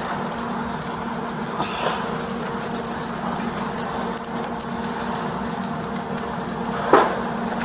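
Light metallic jingling and clicks coming and going over a steady low mechanical hum, with a short louder knock near the end.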